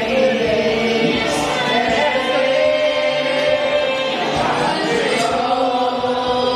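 A choir singing, many voices holding long notes together and moving from chord to chord.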